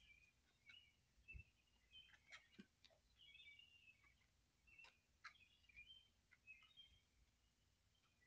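Faint birdsong: short, varied chirping phrases over a quiet background hiss, with a few soft clicks and one low thump about a second and a half in.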